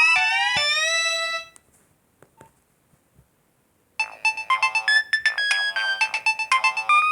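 Nokia 1208b polyphonic ringtones: one ends on a sliding, held chord that dies away about a second and a half in. After a pause with a few faint clicks, another ringtone starts about four seconds in, a fast melody of many short notes.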